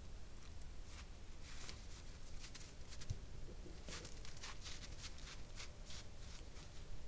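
A red fox's paws crunching in snow close to the camera: a run of faint, dry crackling steps, coming thickest about four seconds in and thinning out toward the end, over a steady low hum from the trail camera.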